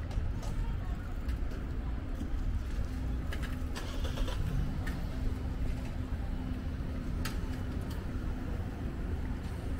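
Urban street ambience: a low, steady rumble of traffic with a faint steady hum and a few light clicks.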